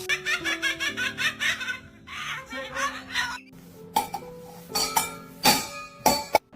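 Laughter in a quick run of short 'ha-ha' pulses over background music with steady held notes. It is followed by a few loud, sharp bursts in the last couple of seconds.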